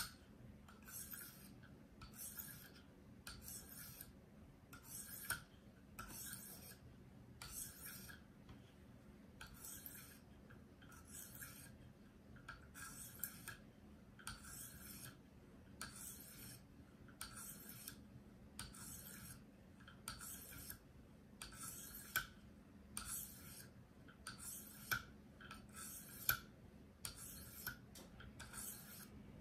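Short, even scraping strokes of a 1500-grit stone on a KME guided-rod sharpener passing along a paring knife's steel edge, a little more than one stroke a second. The edge is being worked to raise a burr on the blade's second side.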